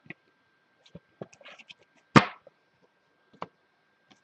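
Trading cards being handled on a table: scattered small clicks and taps, with one sharp knock about two seconds in.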